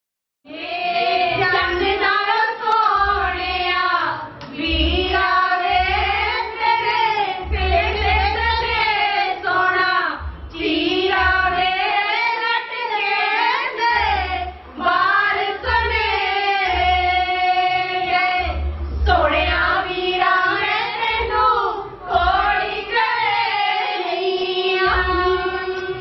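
A group of women singing together in unison, one melody carried in long phrases with short breaks between them, over a low, uneven beat.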